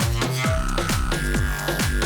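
Electronic dance music soundtrack with a fast, steady kick-drum beat, about four beats a second, and a held synth tone above it.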